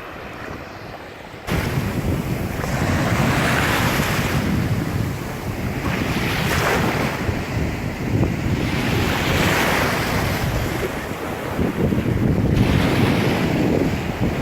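Ocean waves breaking on a beach, the surf swelling in a wash every few seconds, with wind rumbling on the microphone. The sound jumps suddenly louder about a second and a half in.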